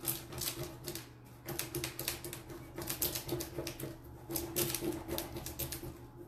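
Clear plastic carrier sheet of an Iron Orchid Designs transfer crinkling and crackling as hands rub and smooth it down onto a board, in quick irregular crackles.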